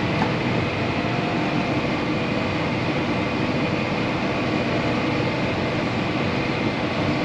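Steady cab drone inside a John Deere 8R 370 tractor pulling a grain cart across a harvest field: the engine and cab fan run evenly, with a few faint steady tones and no change.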